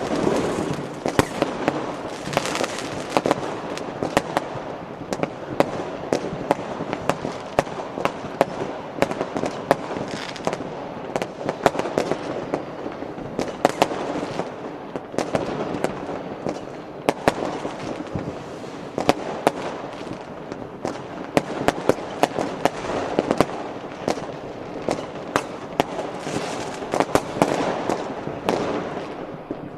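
Fireworks and firecrackers going off together: dozens of sharp bangs at irregular intervals over a continuous noisy wash of more distant explosions.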